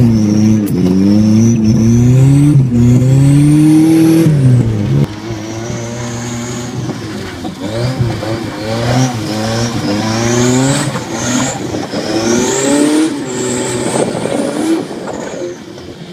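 A car engine revving hard and repeatedly while the car is slid around on wet pavement. It is loud with high revs for the first four seconds, then drops and climbs again in a run of shorter rev sweeps.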